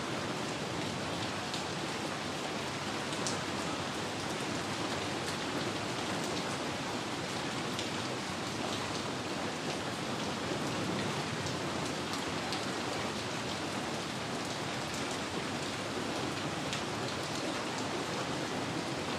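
Steady rain falling, with scattered drop ticks in an even hiss.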